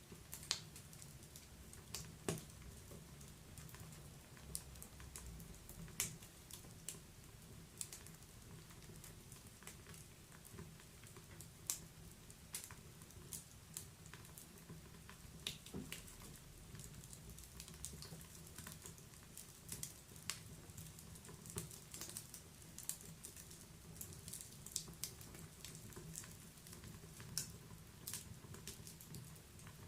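Wood fire crackling in a fireplace: faint, irregular sharp pops and snaps, a few of them louder, over a steady low background.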